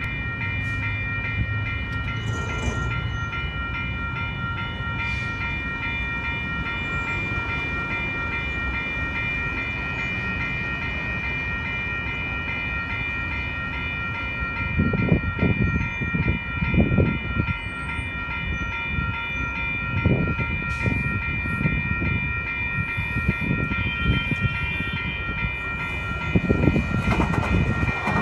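Two electronic railway-crossing bells (a WCH Type-1.5 and a WCH Type-3) ringing together in a fast, steady pulse while the crossing is active for an approaching train. Toward the end a Siemens-Duewag U2 light-rail train rumbles into the crossing under the bells.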